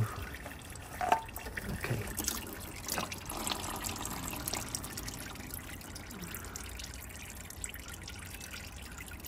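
Used engine oil trickling and dripping into a drain pan as the old oil filter comes off, with a few light clicks from handling about two to three seconds in.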